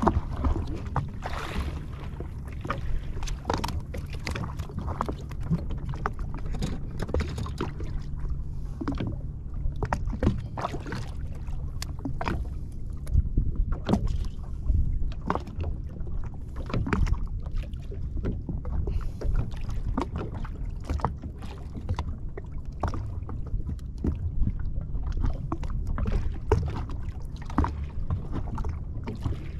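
Water slapping and lapping against the hull of a drifting jet ski, with frequent short knocks and splashes over a steady low rumble.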